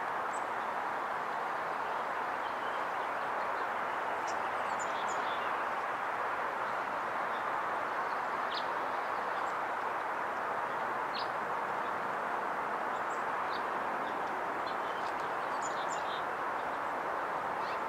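Faint, short, high bird chirps, scattered and sparse, with a small cluster about four to five seconds in and another near the end. They sit over a steady outdoor background noise, which is the loudest thing throughout.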